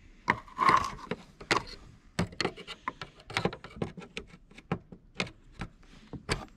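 Irregular sharp plastic clicks, taps and scrapes of hands working at a car's engine-compartment fuse box, a fuse being pulled out and handled.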